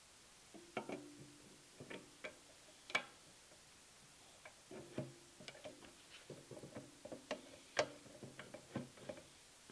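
Metal parts of a Delta 654 6-inch jointer fence clicking and knocking together as the fence bracket is fitted onto the jointer's end, with irregular sharp taps, some with a short metallic ring. The loudest knocks come about three seconds in and near the end.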